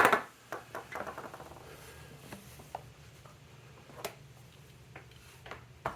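Small metal parts and tools being handled: a sharp clack at the start that rings briefly, then light scattered clicks and rattles, with one more sharp click about four seconds in. A faint steady low hum runs underneath.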